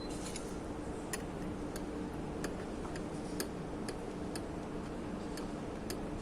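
Light, sharp clicks and taps of hand tools and metal parts during work on an outboard motor, coming unevenly about two to three a second, over a steady low hum.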